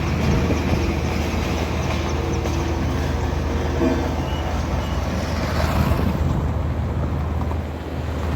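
Engine of a heavy construction machine, such as a road roller or motor grader, running steadily with a low hum.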